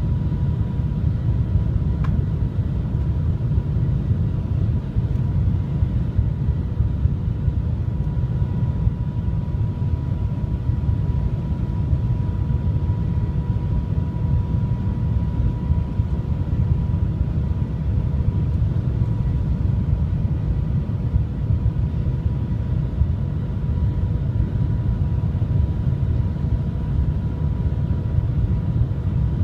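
Shanghai Transrapid maglev train running, heard from inside the passenger cabin: a steady low rumble and rush with a faint steady whine above it. One faint click about two seconds in.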